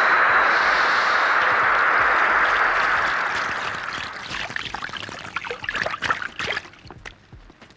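Water jet from a hose spraying in a steady rush that weakens about three seconds in, giving way to scattered splashes and drips that die away near the end.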